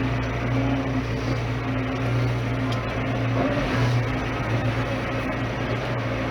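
Tractor engine running at a steady speed, a constant low hum.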